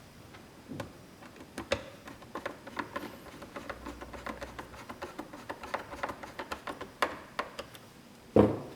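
Phillips screwdriver driving a screw back into a heat press's metal front bracket: a string of small, irregular clicks and ticks, several a second. A louder single knock comes near the end.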